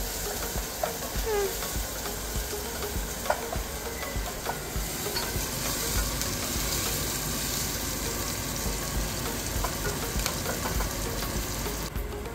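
Onions and diced peppers sizzling as they fry in oil in a pot, with a few light knocks. The high sizzle drops away suddenly near the end.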